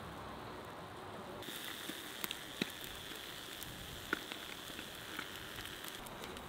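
Golden trout grilling in a wire basket over hot charcoal: a steady sizzle with a few sharp crackling pops from the coals.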